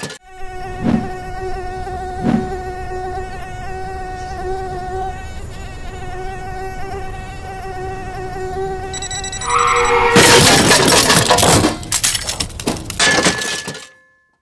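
Small quadcopter drone's propellers buzzing steadily at one pitch, with two dull thumps in the first few seconds. About ten seconds in the buzz gives way to loud, rough clattering noise for about two seconds, the sound of the drone crashing.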